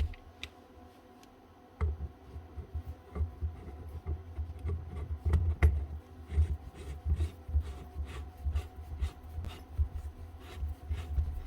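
Metal parts and hand tools being handled at a bench vise while a rotary hammer is reassembled. Irregular clinks and knocks with dull low bumps start about two seconds in.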